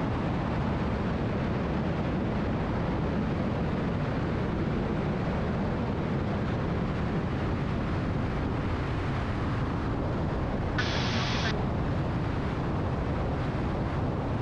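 Steady cockpit rumble of a Cessna T310R's engines and airflow, with a short burst of hiss about eleven seconds in.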